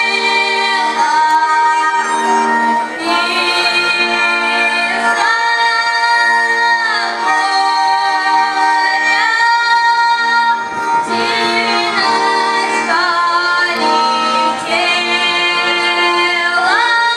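A child singing a folk song over instrumental accompaniment: long held notes that slide up and down between pitches, over steady sustained chords.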